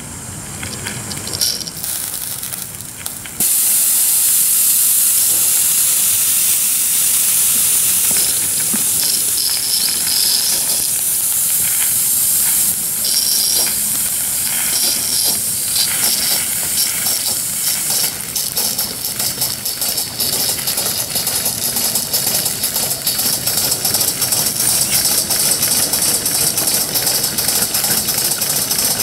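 Two live-steam Gauge 1 Aster BR 86 model tank locomotives: a loud steam hiss starts suddenly about three seconds in. From about two-thirds of the way through it breaks into rapid, even exhaust beats as the engines get under way.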